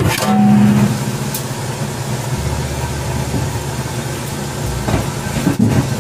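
A steady low mechanical hum, with a few short snips of kitchen shears cutting through raw shrimp shells near the end.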